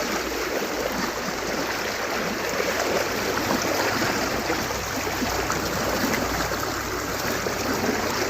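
Water of a small river running and splashing steadily, with a busy, irregular trickle.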